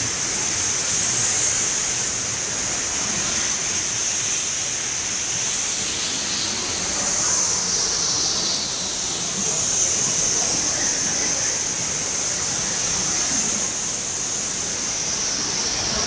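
Waterfall and cascading river water rushing steadily, with a constant high-pitched hiss over the top.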